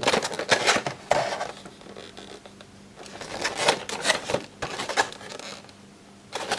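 Clear plastic blister pack of a carded 1:64 diecast model truck crackling and scraping in the hands as it is handled and turned over, in short irregular spells: a cluster at the start, more around three to four seconds, and a last one near the end.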